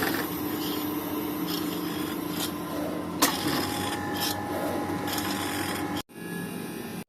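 Ice cream machine's motor running with a steady hum, a sharp click about three seconds in.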